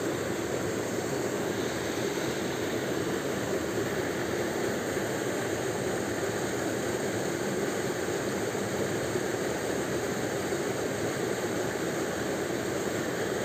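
Steady rushing water noise, even and unbroken throughout.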